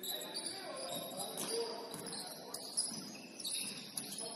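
Basketball sneakers squeaking on a hardwood gym floor, several short high squeaks during play, with faint voices.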